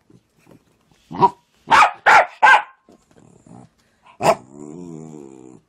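A dog barks four times in quick succession. Then one more sharp bark runs into a drawn-out, wavering whine about a second long: attention-seeking barking.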